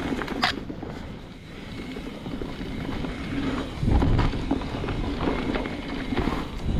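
A mountain bike being ridden on a dirt trail: wind buffeting the microphone over the rumble of tyres and the bike's rattles and clicks, with a louder jolt about four seconds in.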